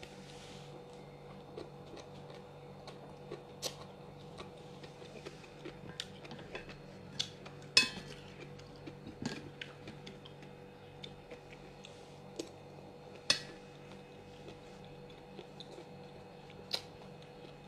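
Eating sounds: irregular light clicks and clinks of utensils against dishes, the loudest about eight and thirteen seconds in, over a steady faint hum.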